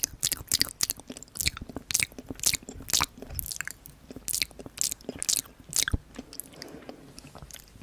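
Close-miked chewing of chocolate-coated ice cream bites, the hard dark-chocolate shell cracking in quick crisp crunches. The crunching stops about six seconds in, leaving a few softer mouth sounds.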